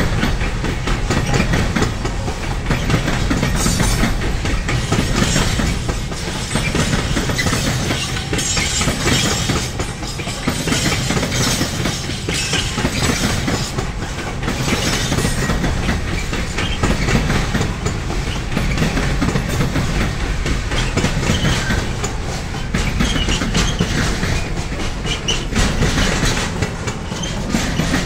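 Freight train rolling past, its wagons' wheels clattering over the rail joints, swelling and easing every couple of seconds.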